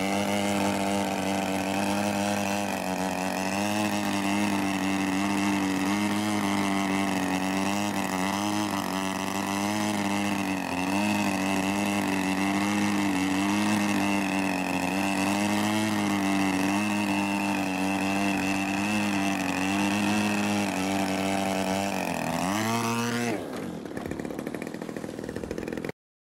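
Desert Aircraft DA-50 50cc single-cylinder two-stroke petrol engine of an Extra 300L RC aerobatic plane, running loud and steady at high throttle while the plane hangs on its propeller in a hover. Its pitch wavers slightly with throttle corrections. Near the end the note dips, rises briefly, then falls away sharply.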